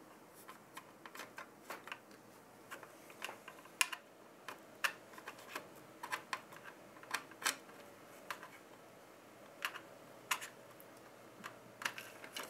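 Light clicks and taps at irregular intervals as a CPU cooler backplate and its four mounting bolts are handled and fitted through the back of a motherboard.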